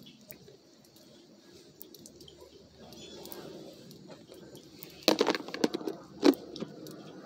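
Rain pattering and dripping close to the microphone, heard as many small scattered ticks over a soft hiss. A few louder sharp sounds come about five seconds in and again a little after six.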